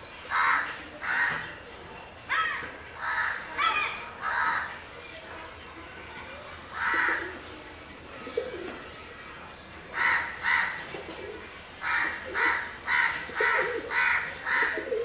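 Crows cawing over and over in short calls, spaced out at first, then in a quick run of about two caws a second over the last few seconds.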